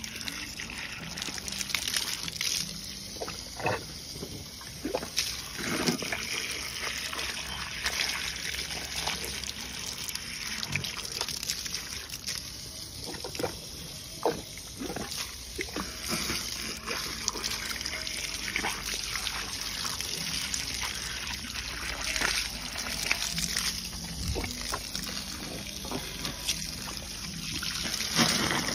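Water from a garden hose trickling and splashing against an elephant's trunk tip and onto dirt, with frequent small splashes, as the elephant drinks from the hose.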